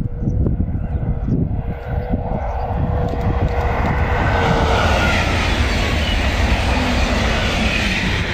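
High-speed electric train passing at speed on the line: a rushing noise that builds from about two seconds in and stays strong as it goes by, with a tone that drops slightly in pitch about halfway through.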